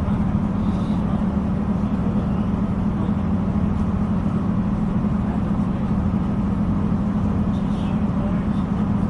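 Steady running noise inside a moving Northern Ireland Railways diesel multiple unit: a constant low engine and traction hum with wheel and rail rumble.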